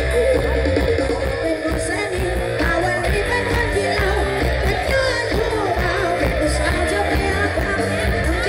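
Music with a singer's voice blasting from a Thai rot hae parade sound truck's speaker stack, with heavy, solid bass.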